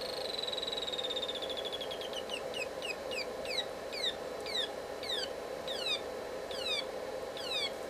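Homemade transistor electronic siren oscillator being retuned with its first-transistor bias potentiometer. A steady high beep breaks up into a series of short falling chirps that come more and more slowly, settling at about two a second, over a faint steady hum.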